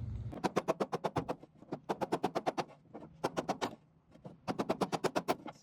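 Rapid, even clicking in four bursts of roughly ten clicks a second, each burst lasting about a second with short pauses between.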